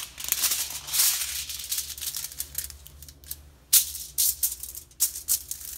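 A sheet of aluminum foil crinkling as hands spread and smooth it over a countertop. A dense crackle for the first few seconds, then a handful of separate sharp crinkles.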